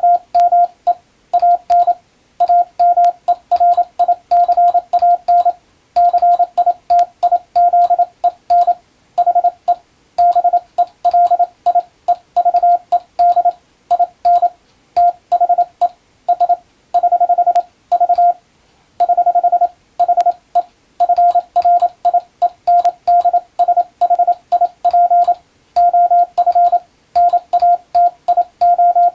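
Morse code (CW) practice tone: a single steady mid-pitched tone keyed on and off in quick dots and dashes, with short pauses between characters and longer pauses between words.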